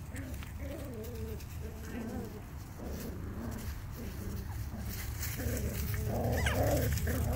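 Cavalier King Charles Spaniel puppies whimpering and yipping as they play-fight, with short rising and falling cries that get louder near the end.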